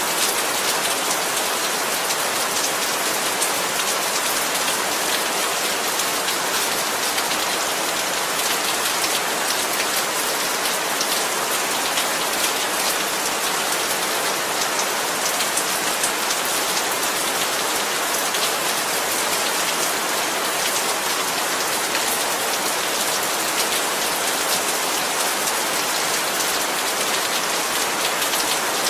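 Heavy rain falling steadily, a dense even hiss of drops hitting surfaces, with many small drop ticks and no letup.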